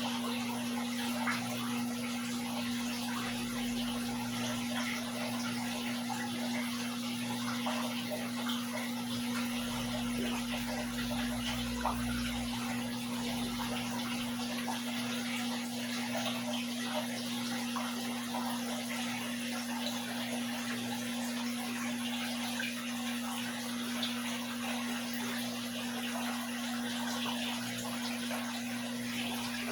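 Aquarium water trickling and splashing steadily, with a steady low hum underneath.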